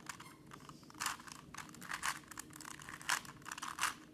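Plastic Rubik's Cube being twisted by hand: an irregular run of quick clicks and clacks as the layers turn, with a few louder clacks about a second apart.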